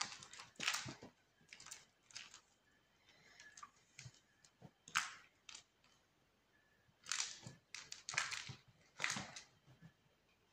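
Kittens playing on a carpet: irregular bursts of scuffling, scratching and rustling from paws pouncing and skidding, the loudest about five seconds in and again around seven to nine seconds.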